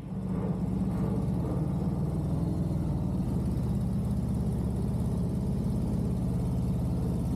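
Touring motorcycle's engine idling steadily, a low-pitched, even running sound.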